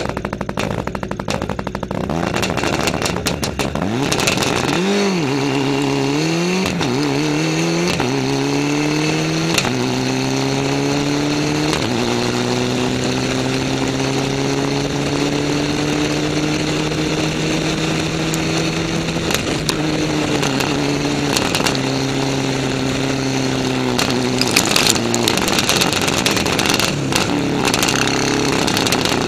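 A car's engine and exhaust, heard low at the rear of the car, accelerating through several gears: the pitch climbs and drops back at each upshift, then holds steady while cruising and steps down again near the end as the car eases off.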